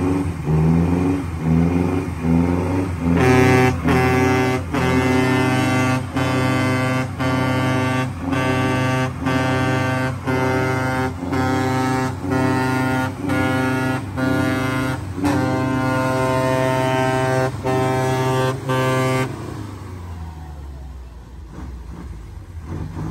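A musical air horn plays a tune as a string of short notes, about two a second, for roughly sixteen seconds, with the melody changing pitch partway through. It then cuts off, leaving an engine running underneath.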